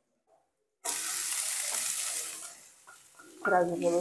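Chopped onion tipped into hot ghee already holding cumin, garlic and chili: a sudden loud sizzle about a second in that dies down over the next second and a half.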